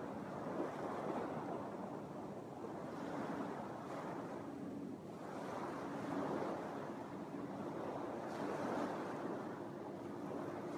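Small Lake Michigan waves washing onto a sandy beach: a soft rushing that swells and eases every couple of seconds. A faint steady hum sits underneath.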